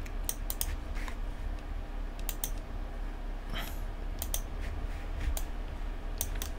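Computer keyboard keys and mouse buttons clicking at irregular intervals over a low steady hum.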